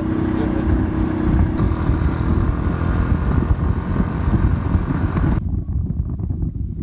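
Riding on a motorcycle: wind rushing over the microphone mixed with engine and road noise. The sound cuts suddenly about five seconds in to a lower, duller wind rumble.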